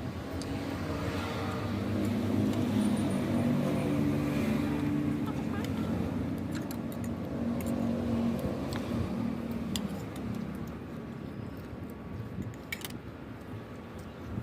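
A motor vehicle's engine hum passing by, growing louder over the first few seconds and then fading away, with scattered small clicks.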